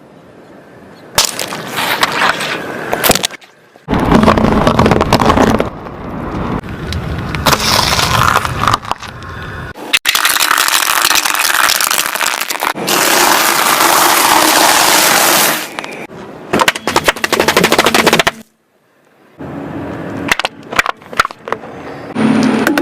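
Objects cracking and crunching as a car's tyres roll over them, in several separate spells of rapid snapping and crackling with short breaks between them.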